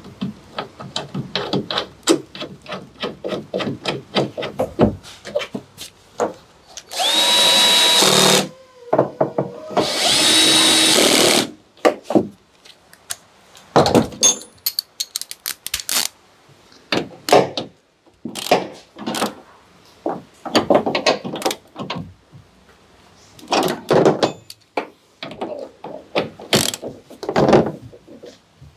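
Power drill running in two steady bursts of about a second and a half each, a few seconds apart, amid many short clicks and knocks of hand tools and plastic parts.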